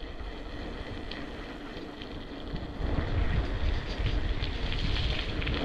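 Wind buffeting the microphone and tyre rumble as an electric BMX rolls along a tarmac lane, getting louder about three seconds in.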